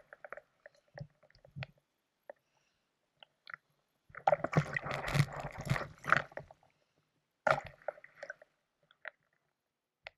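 Fins kicking at the surface of slushy, ice-strewn lake water: splashing and sloshing with scattered small clicks and knocks. The heaviest splashing comes about four seconds in and lasts a couple of seconds, with a shorter burst near eight seconds.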